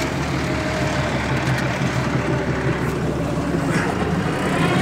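Farm tractor engine with a cut-down exhaust running steadily under load while pulling a plough, heard from the driver's seat; it gets a little louder near the end.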